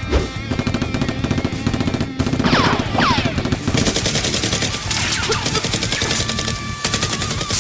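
Rapid automatic gunfire sound effects over background music, the bursts coming thick and fast through the second half. Two falling swoops come just before the firing starts.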